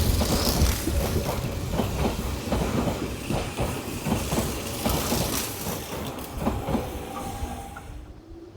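Electric commuter train running past, its wheels clattering rapidly over rail joints above a low rumble, fading away toward the end.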